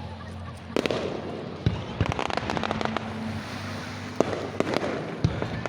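Fireworks bursting: a handful of sharp bangs, with a dense stretch of crackling a couple of seconds in, over a steady low hum.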